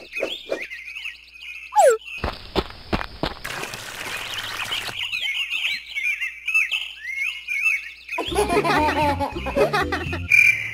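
Cartoon birds chirping and tweeting in quick repeated calls, with a falling whistle about two seconds in and a stretch of hiss-like noise after it. Near the end comes a denser jumble of sound effects with low thumps.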